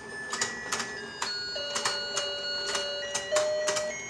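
Rotating toy fishing-game pond running: its tinny electronic tune plays in held single notes over steady clicking from the turning mechanism, about two to three clicks a second.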